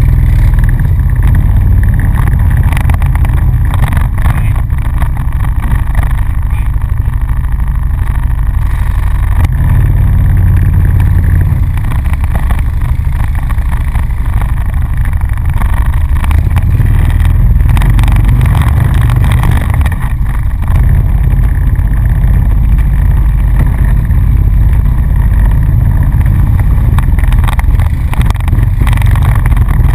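ATV engine running steadily while riding along, heard on board as a continuous low rumble with small rises and dips in throttle.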